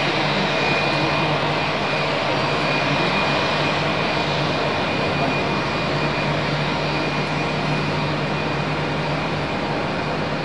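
Jet airliner engines running: a loud, steady rush of noise with a thin high whine over it.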